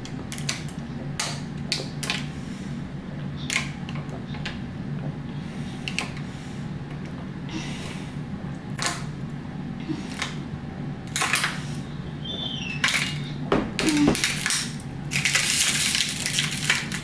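A person drinking water from a bottle in long gulps, with irregular crackles and clicks like a plastic water bottle crinkling in the hand. A louder rush of noise comes near the end.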